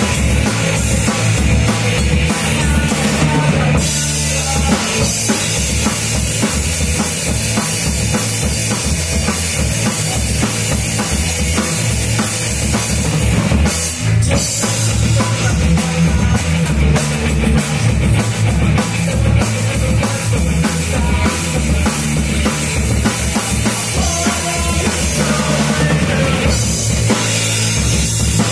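Live rock band playing loudly: drum kit driving a steady beat under electric guitars.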